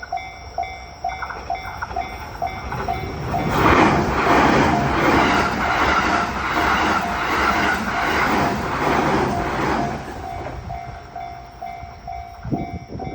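Japanese level-crossing alarm ringing its repeated electronic ding, two to three strikes a second, throughout. From about three seconds in until about ten seconds in, a train passes over the crossing with a loud rhythmic clatter of wheels over the rail joints, then fades.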